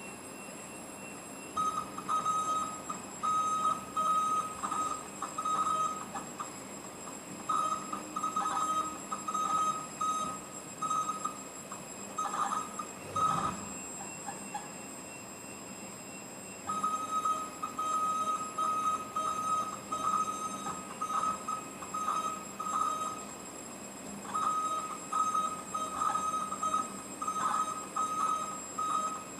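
Bulleri CNC machine running a test program, its axis drives giving a high whine that starts and stops over and over as the machine makes short moves, with a quieter spell of a few seconds about halfway through.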